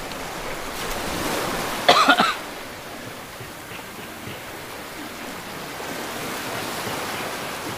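Steady wash of shallow sea water with some wind, broken by a brief loud burst about two seconds in.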